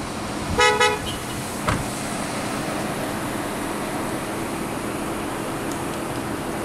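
A car horn sounds one short toot about half a second in. A steady background hum of outdoor traffic and car noise follows.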